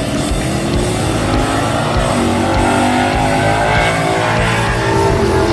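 Background rock music with electric guitar, loud and steady.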